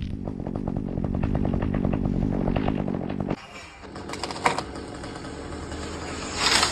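Chainsaw cutting through a tree limb at steady high revs for about three seconds, then dropping away abruptly as the cut finishes. A short rushing noise follows near the end.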